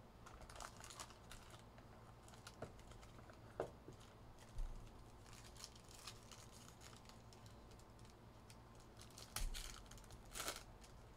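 Faint crinkling of foil trading-card pack wrappers, with light clicks and taps as the packs and their cardboard box are handled; a few louder crinkles come near the middle and near the end.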